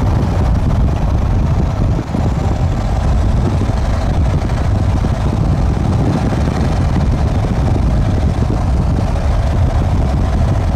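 Steady, loud road and engine noise of a pickup truck carrying a camper, driving at speed and heard from inside the cab.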